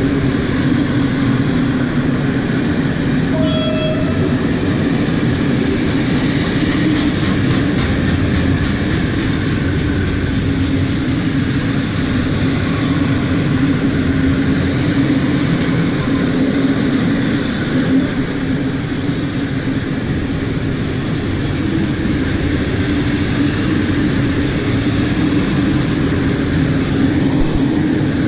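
Freight train passing the level crossing: a loud, steady rolling noise of wagons on the rails, with a short toot about three and a half seconds in.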